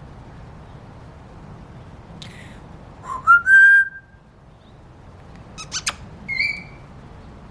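African grey parrot whistling: a rising whistle held steady for about a second, then a few sharp clicks and a short, higher whistle.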